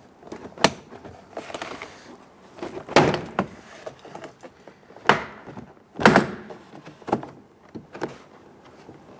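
Plastic push-pin clips of a Ford Explorer door trim panel popping loose one after another as the panel is pried off the door: a string of sharp snaps and knocks, the loudest about three, five and six seconds in.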